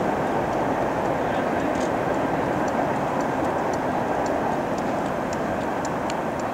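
Steady rushing noise of wind on the microphone, with faint light clicks scattered through it.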